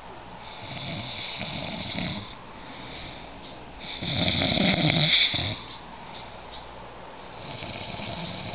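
Snoring: a run of raspy snoring breaths, each a second or two long, with the loudest about four seconds in.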